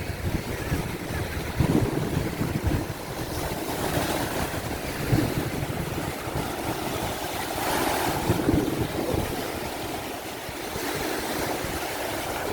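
Ocean surf washing in steadily, with wind rumbling on the microphone in uneven gusts.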